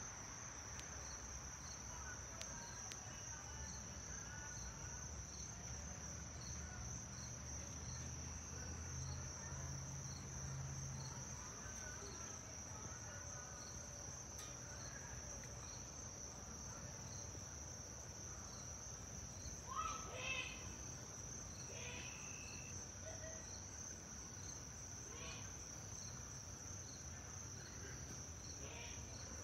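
Steady high insect trill over a faint low rumble from a jet airliner passing high overhead; the rumble swells slightly about a third of the way in. A few short chirps stand out about two-thirds through.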